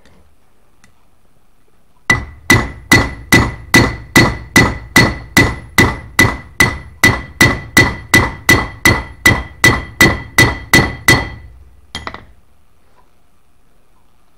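Steel hammer striking the riveted end of an old pruning-shear blade on a steel plate: about two dozen even blows, roughly two and a half a second, each with a clear metallic ring, then a quick double tap near the end.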